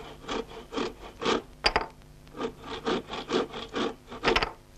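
Handsaw sawing through a wooden table leg in quick back-and-forth strokes, about two a second, with a short break partway through and a couple of sharper, clicking strokes.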